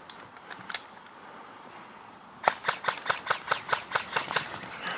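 A rapid string of about a dozen sharp airsoft gun shots, roughly six a second, starting about halfway through and lasting about two seconds. A couple of fainter clicks come before it.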